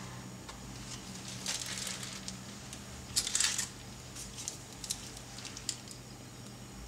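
Plastic piping bag crinkling as it is handled, in two short bursts, the louder one about three seconds in, followed by a few light ticks, over a low steady hum.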